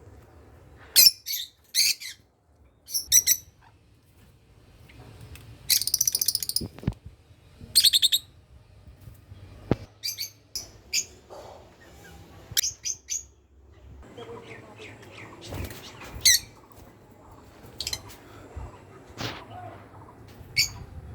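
Lovebirds calling: short, shrill, high chirps that come singly and in quick clusters, with one longer buzzy call about six seconds in.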